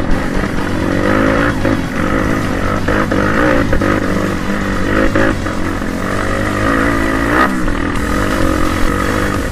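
Trail motorcycle engine revving up and down repeatedly while climbing a rough dirt track, with scattered knocks and rattles from the bike over the bumps.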